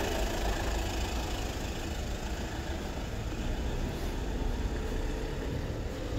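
Steady low rumble of city street traffic with vehicle engines running.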